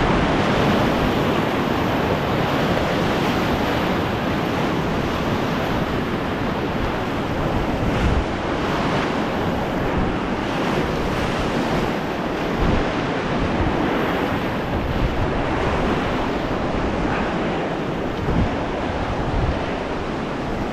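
Whitewater of a big river rapid rushing and churning around a canoe, with wind buffeting the microphone; the rush eases gradually as the boat rides out into calmer tail waves. A few brief thumps break through the noise.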